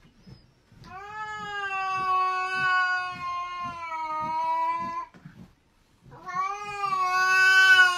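A cat yowling in two long, drawn-out calls on a steady pitch. The first lasts about four seconds; the second starts near the end and is the louder.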